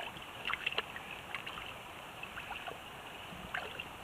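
Shallow stream running over stones, with a few small splashes and drips scattered through it.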